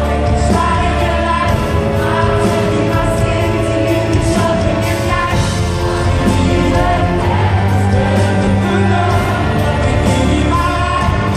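Live band music at a concert, heard from within the audience: a male lead singer over electric guitar and drums, with backing singers, at a steady loud level.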